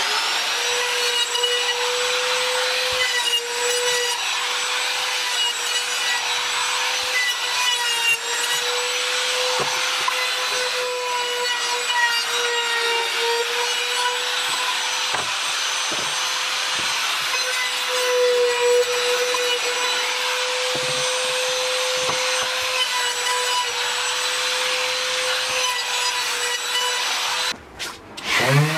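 Electric sander running steadily against a pine panel: a constant motor whine over a rough rubbing hiss of abrasive on wood. Near the end it stops for a moment and a motor spins up again, rising in pitch.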